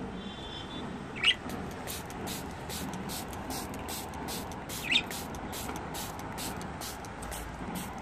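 Hand trigger spray bottle squirting water in quick short pumps, about three a second, misting caged budgerigars. A budgie gives two short, sharp calls, about a second in and again near five seconds, the loudest sounds here.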